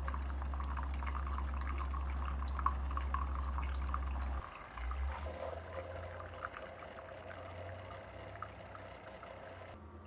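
Two Keurig coffee makers, a K-Supreme and a K-Express, near the end of a brew: a steady low pump hum with coffee trickling into glass mugs. The hum cuts off sharply about four and a half seconds in as the brew finishes, leaving a quieter steady whine that stops just before the end.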